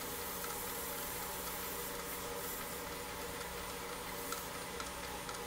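Wood lathe running at a steady hum, spinning a bowl while lacquer is brushed onto it, with a few faint ticks.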